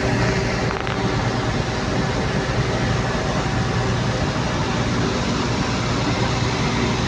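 Steady low drone of a boat's engine running under way, mixed with an even rush of wind and water.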